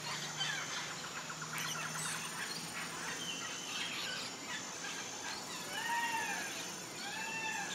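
Birds chirping and calling softly in an aviary: scattered short chirps, then two arched call notes near the end.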